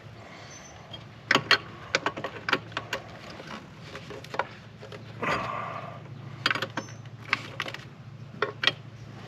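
Open-end wrench clicking and clanking against metal while a new threaded engine sensor is tightened into a Fox Body Mustang 5.0: scattered sharp metallic clicks in two clusters, with a brief scrape about five seconds in.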